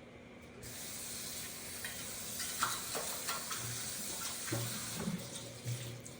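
Kitchen tap turned on about half a second in, water running steadily into the sink, with a few light clinks and knocks.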